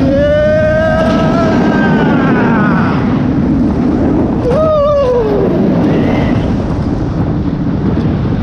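Kraken steel roller coaster ride from a rider's seat: loud wind rush over the microphone and track rumble. A rider's long yell runs through the first three seconds, and a second, falling yell comes about five seconds in.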